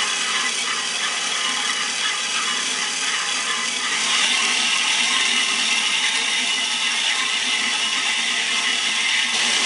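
Horizontal band saw cutting through a steel pipe: a steady grinding hiss of blade teeth on metal over the running saw. It grows louder and brighter about four seconds in.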